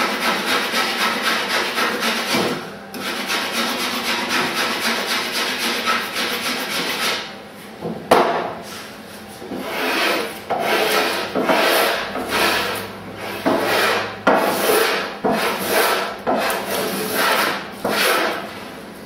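Small block plane shaving the edge of a wooden Greenland kayak paddle blank: a steady stretch of rasping for about seven seconds, then a brief pause and a run of separate strokes, a little faster than one a second, each a rasping swish as a shaving curls off the wood.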